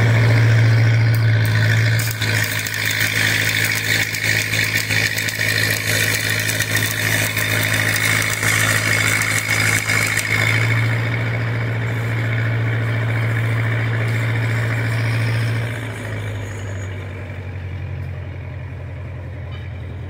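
Stick (arc) welding on a cracked steel truck axle housing: the arc crackles steadily over the constant drone of the welding machine, the whole sound getting quieter for the last few seconds.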